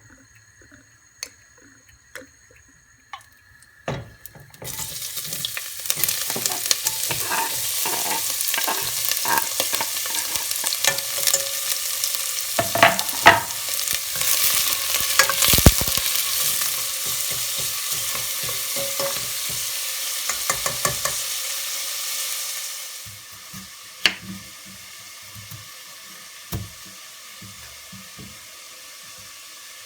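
Food frying in a hot pan: a loud sizzle starts about four seconds in, with clicks and scrapes of a utensil stirring. The sizzle drops away near twenty-three seconds, leaving scattered clicks and knocks.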